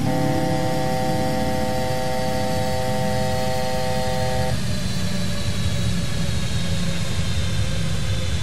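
Airbus A350 cockpit alert sounding as a steady chord of several tones, which cuts off suddenly about four and a half seconds in. Under it runs the steady rumble of the airliner's engines and airflow during the climb.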